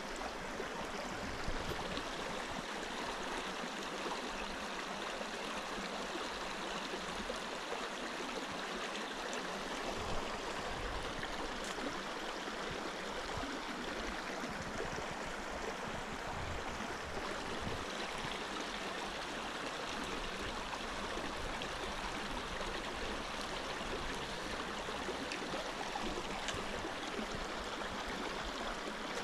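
Steady rush of a small stream's flowing water.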